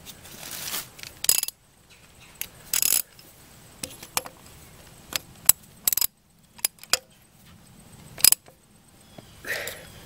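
Scattered metallic clicks and clinks with short scraping stretches: a ratchet and deep socket being handled and set on a new oil pressure switch threaded into the engine block, with a few sharp ratchet clicks as it is snugged down.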